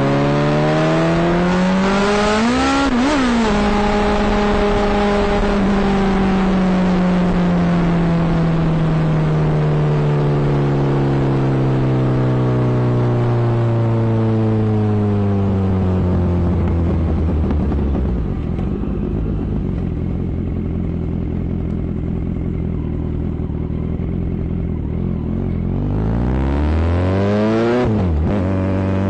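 Kawasaki Z900 inline-four motorcycle engine revving up sharply, then its pitch falls slowly over about fifteen seconds and settles to a low steady run. Near the end it revs up again quickly and drops back.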